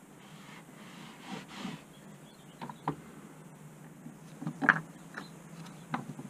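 A cloth wiping across a wooden workbench, followed by several light knocks and clicks of gloved hands and small parts on the bench, the loudest a little past the middle.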